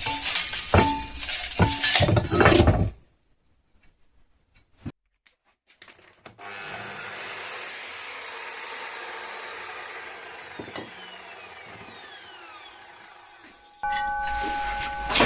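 Power saw cutting a piece of steel stock: a steady sawing noise for about seven seconds that slowly fades. It is preceded by loud knocks and rattles of metal being handled. Near the end a steady ringing tone of several pitches starts.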